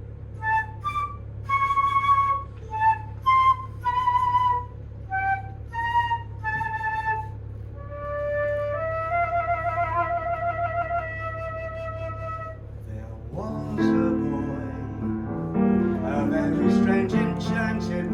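Solo flute playing a melody: a run of short separate notes, then longer held notes with vibrato. Piano comes in with chords near the end, under a steady low hum.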